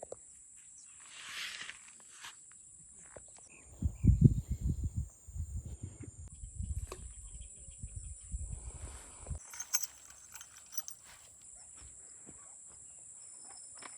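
A steady high-pitched insect drone. From about four seconds in there is a run of loud, irregular low rumbling and thumping that stops abruptly after about five seconds.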